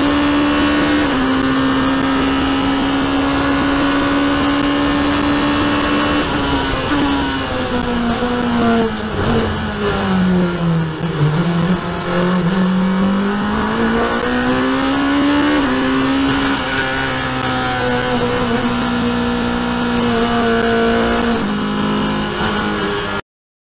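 Racing sports car's engine heard onboard, running at high revs on a straight, then falling in pitch as the car brakes and slows for a corner and climbing again as it accelerates out. The sound cuts off abruptly near the end.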